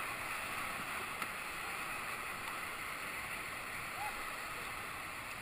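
Steady rushing hiss of whitewater rapids on the Ocoee River, the water churning evenly around the raft.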